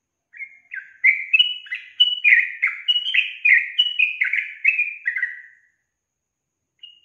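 Yellow-vented bulbul (trucukan) singing: a quick chattering run of short notes, each sliding down in pitch, for about five seconds. A single short note follows near the end.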